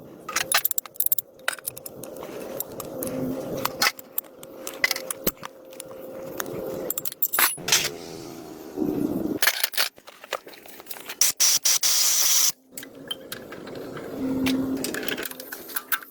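Workshop tool sounds from car repair: a run of sharp metallic clicks, knocks and scraping, with a hiss lasting about a second and a half around three-quarters of the way through.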